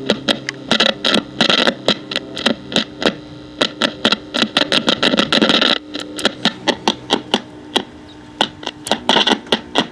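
Clock radio's speaker crackling and popping irregularly, several pops a second and thickest in two patches, over a steady mains hum.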